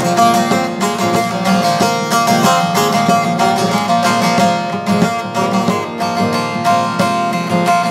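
Long-necked Turkish bağlama (saz) played solo in a fast, continuous strummed rhythm, ringing steady melody notes over a drone: an instrumental interlude between sung verses of a folk ballad.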